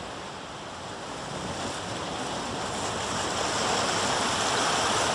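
A steady rushing noise, like wind or surf, that slowly swells louder.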